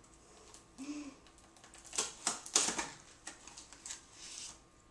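A small cardboard box being slit with a little box-cutter knife and pulled open: a run of sharp scraping and crackling clicks, loudest a little after halfway, with cardboard flaps rustling.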